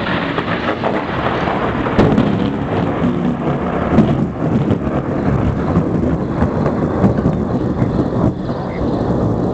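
Thunder rumbling over steady rain, with a sharp crack about two seconds in and the loudest peal about four seconds in.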